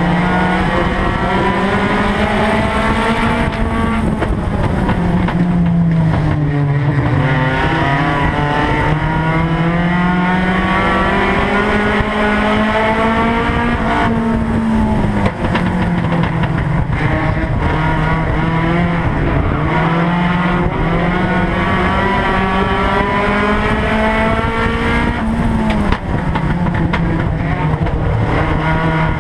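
Race car engine heard from inside the cockpit, running hard throughout, its pitch climbing and dropping every several seconds as the car speeds up and eases off around the track, over steady road and cabin noise.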